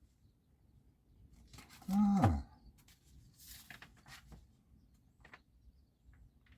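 Objects being handled and rummaged out of a storage cubby, with scattered clicks and rustles. About two seconds in comes a short low voiced sound that holds its pitch and then falls away.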